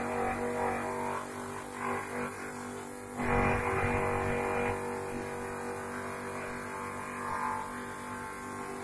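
Small 125-watt electric grass chopper running with a steady, humming drone. Rougher bursts of chopping noise come and go as grass is fed into the blades, the loudest about three seconds in.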